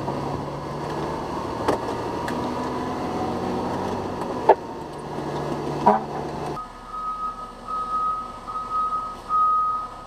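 Fire engine running, heard from inside the cab with a steady low hum and a few sharp clicks. About two-thirds of the way in, the engine noise drops and the truck's reversing alarm starts beeping steadily at one high pitch as it backs up.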